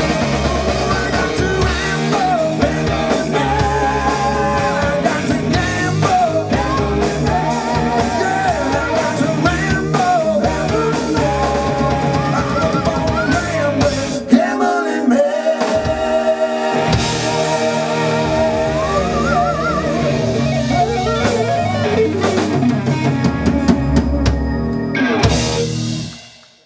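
Live rock band playing an instrumental passage with electric guitar, bass, drums and wavering lead lines from harmonica and saxophone. The bass and drums drop out for a couple of seconds about fourteen seconds in, then come back. The music fades out at the end.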